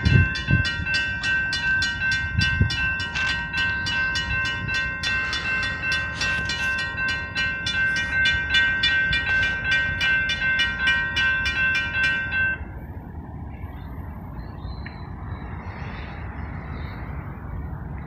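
Railroad crossing warning bell ringing in a fast, even rhythm, cutting off suddenly about twelve and a half seconds in. After that comes a quieter, steady rumble of an approaching freight train.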